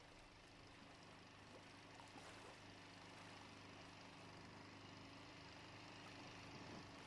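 Near silence with a faint, steady engine hum that slowly grows louder, over quiet river ambience.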